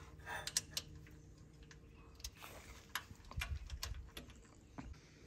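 Scattered light clicks and taps at an irregular pace, with a faint low rumble a little past halfway.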